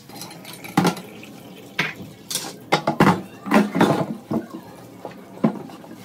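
Tap water running from a pull-down kitchen faucet onto a wooden cutting board in a stainless steel sink, with repeated irregular knocks and clatters of the board and dishes in the sink.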